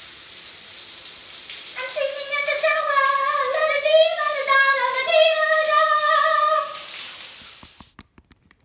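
Shower head spraying water, a steady hiss, with a girl singing a high tune over it from about two seconds in until near seven seconds. The water cuts off about eight seconds in, followed by a few small clicks.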